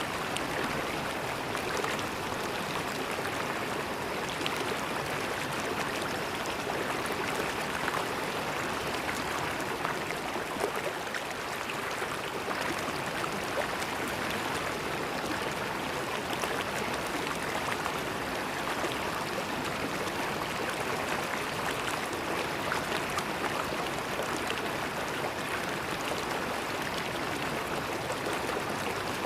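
River water flowing and gurgling over stones, a steady even rush with small splashes and trickles throughout.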